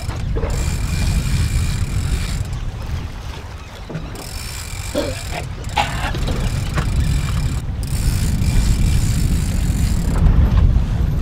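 Wind buffeting the microphone on a boat at sea, a steady low rumble, with a fishing rod's reel being cranked in against a heavy fish and a few light knocks.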